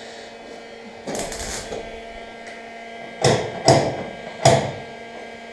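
Steady electrical hum, with a hand rubbing and scraping on a painted plastic bumper: a soft rub about a second in, then three short scrapes between about three and four and a half seconds in, as the fingers work at the cracked lacquer.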